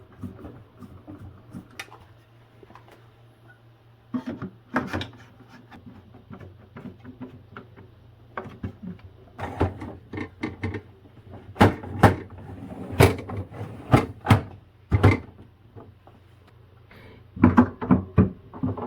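Refrigerator parts being refitted: a run of sharp knocks and clicks, loudest and about one a second in the middle, with another quick cluster near the end.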